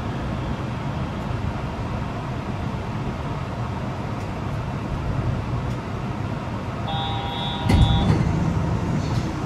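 Steady rumble inside a Yurikamome automated train car. About seven seconds in, a short electronic chime sounds, followed at once by a heavy thump, the loudest moment.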